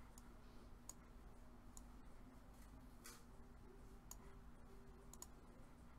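Near silence broken by faint, scattered computer-mouse clicks, about one a second, over a faint steady hum.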